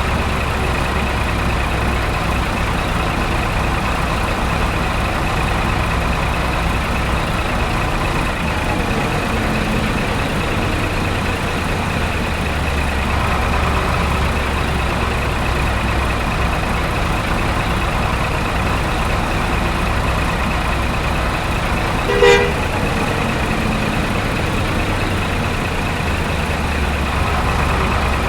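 A truck engine running steadily, with one short horn toot about two-thirds of the way through.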